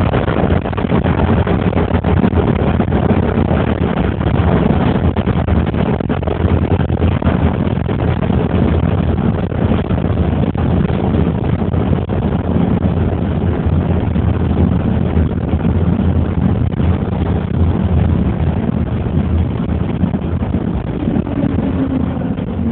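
Steady engine and road rumble of a moving vehicle, heard from inside it as it drives along a street.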